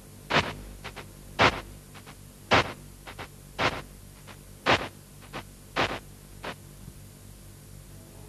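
Slow, evenly spaced percussion strikes, about one a second with lighter strokes between them, over a steady low hum; the strikes stop a little past the middle.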